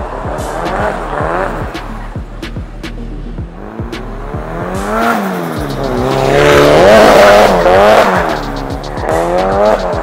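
A drift car sliding on its tyres, the engine revving up and down again and again with tyre squeal; it is loudest about six to eight seconds in, as it passes close by.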